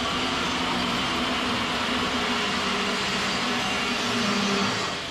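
Steady hissing noise of shop machinery running, with a few faint low hums.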